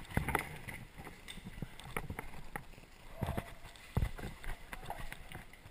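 Irregular footsteps and knocks of a player moving on foot, a few short thuds a second, the loudest about four seconds in.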